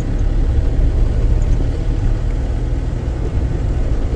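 Car engine and tyre noise heard from inside the moving car's cabin, a steady low rumble.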